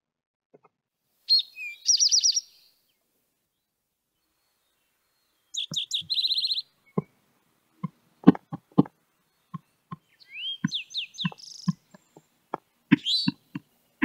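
Recorded eastern towhee singing its 'drink-your-tea' song three times, each a short note or two followed by a fast high trill, with a sharper call near the end. A run of light taps starts about halfway through.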